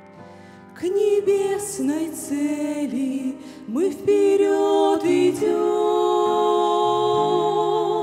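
Two women singing a Russian-language hymn in two-part harmony with grand piano accompaniment. The voices come in about a second in over soft piano and end on a long held note.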